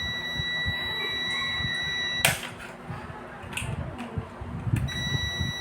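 A steady high-pitched electronic buzzer tone. It stops with a sharp click a little over two seconds in and comes back near the end, over low rumbling handling noise.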